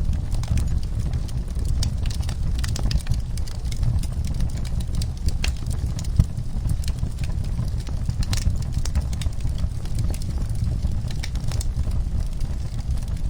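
Wood fire in a fireplace crackling, with irregular snaps and pops over a steady low rumble of the burning logs; one sharper pop about six seconds in.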